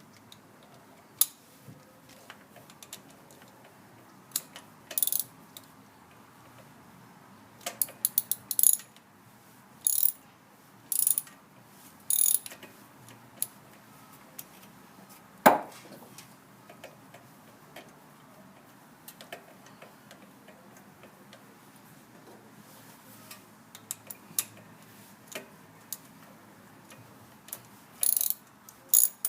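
Ratchet wrench clicking in short back-and-forth strokes on a spark plug socket, working a spark plug in its well on a four-cylinder engine, in bursts with pauses between. One sharp metallic knock about halfway through.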